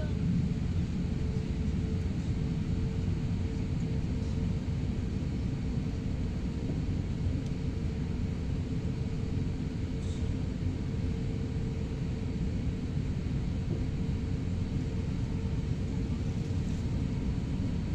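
Steady low rumble of an airliner's cabin as the plane taxis: engine and air-conditioning noise, with a faint steady hum.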